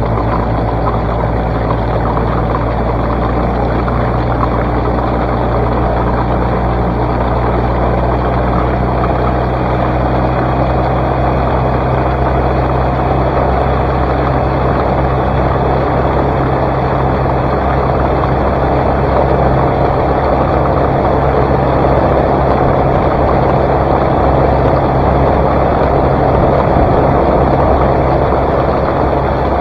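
Outboard motor of a Shadow Cast 16 skiff running steadily at high speed, with wind and water rushing past the hull. It grows slightly louder in the second half.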